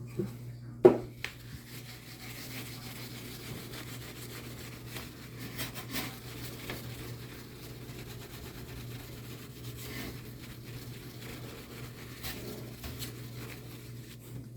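Fine 0000 steel wool scrubbing on glass, a steady rasping rub, with a sharp knock about a second in.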